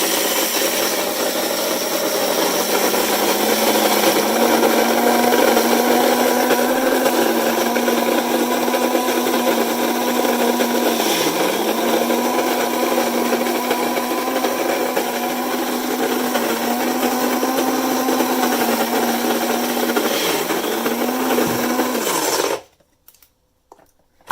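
Krups GX5000 electric burr coffee grinder running steadily, grinding a 12-cup batch of beans at its finest setting. The motor hum dips in pitch briefly a few times, and the grinder cuts off suddenly near the end.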